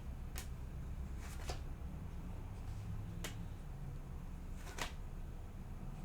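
Tarot cards being handled, giving four short, sharp clicks spread over several seconds, over a steady low hum.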